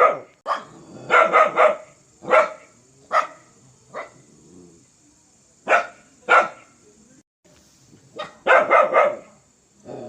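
A fierce dog barking in short volleys: single barks and quick runs of three or four barks, with pauses between them.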